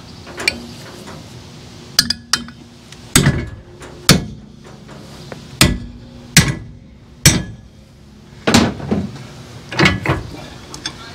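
A hammer striking a 1/8-inch steel plate clamped in a hitch-mounted bench vise, about a dozen hard, irregular blows, each ringing briefly in the metal. The beating tests whether the vise's screw holds or starts to loosen.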